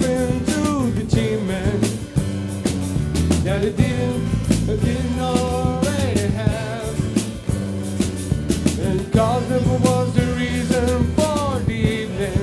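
Acoustic band playing live: strummed acoustic guitar, bass guitar and percussion keep a steady groove, and a male voice sings held, wavering phrases over it.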